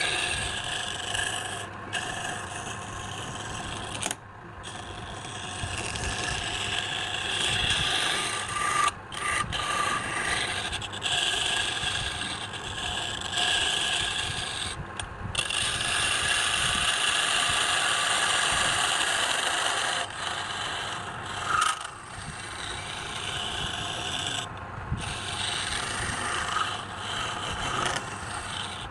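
Wood being worked on a spinning lathe: a steady scraping hiss over the low hum of the lathe's motor, breaking off briefly several times as the tool lifts from the wood.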